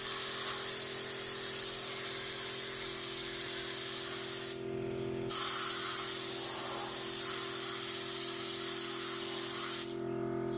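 Compressed-air gravity-feed paint spray gun spraying in two long hissing bursts, each about four and a half seconds, with a short break in the middle. A steady low hum sounds underneath throughout.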